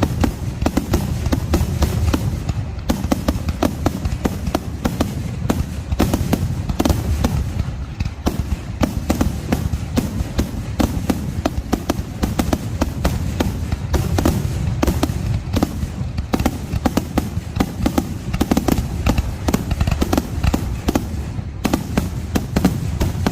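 Aerial fireworks display going off in rapid succession: many sharp bangs and crackles a second over a continuous low rumble of overlapping bursts.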